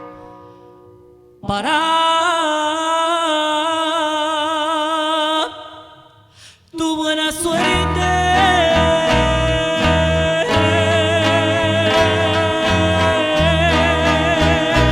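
Romantic trio music with singing: a long note held with vibrato for about four seconds, a brief break, then singing over plucked strings and a stepping bass line.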